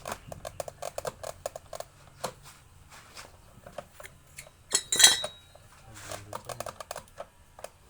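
Metal tools and motor parts clinking and tapping in quick irregular clicks during disassembly, with one louder metallic clang that rings briefly about five seconds in.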